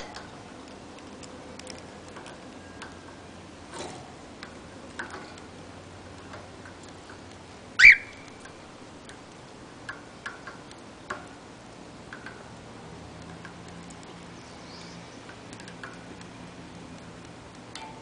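Cockatiel nibbling and working at a wooden cage toy with its beak, making scattered small clicks and taps. One much louder sharp click comes about eight seconds in.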